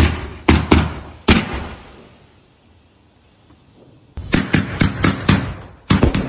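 Fireworks going off in a rapid string of bangs. They fade into a lull of about two seconds, then another quick volley of bangs starts about four seconds in and carries on near the end.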